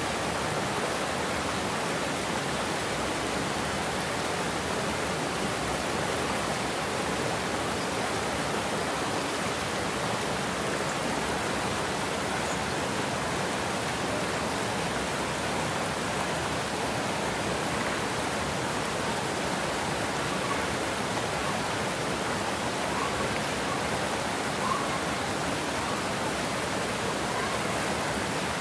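Water pouring over a low concrete dam's spillway into churning whitewater: a steady, unbroken rush.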